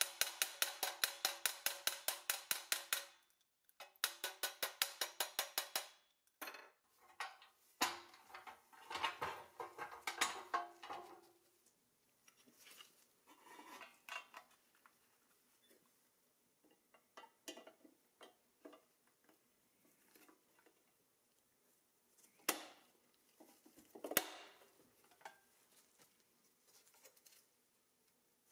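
Nylon-tipped hammer tapping rapidly on a powder-coated steel toy-truck part, about seven ringing taps a second, in two runs of a few seconds each. Then clinking and handling of small metal and plastic parts, with two sharper clicks near the end.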